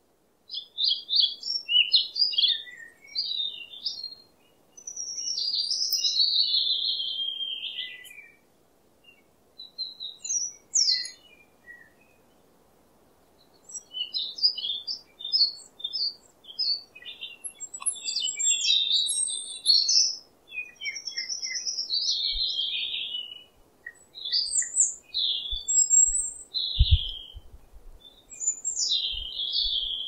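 A small flock of Eurasian tree sparrows chirping and chattering: quick high chirps in bursts, with longer chattering runs and a couple of short pauses about a third of the way in.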